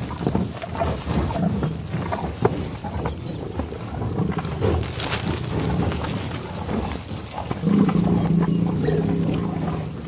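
A herd of livestock calling: deep, rough bellows and lows, with one long low call held for nearly two seconds near the end.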